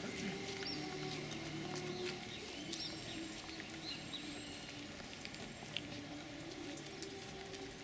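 Shuffling footsteps of a group walking on a cobblestone path, with short high bird chirps and a faint wavering low hum underneath.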